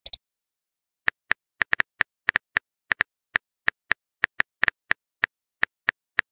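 Keyboard tap sounds from a phone texting-story app as a message is typed out, letter by letter: short, sharp clicks all alike in pitch, coming irregularly at about four or five a second from about a second in.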